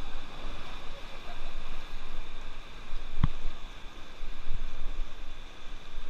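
River water rushing around a raft, with a single sharp knock about three seconds in.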